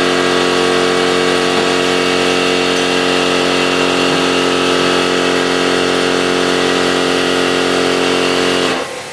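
A machine motor running with a steady, many-toned hum over a hiss, cutting off abruptly near the end and leaving a softer steady hiss.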